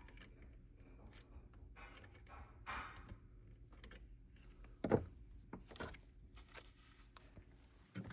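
Faint workbench handling sounds: small clicks and rustles of tools and parts being handled, with one louder thunk about five seconds in, over a low steady hum.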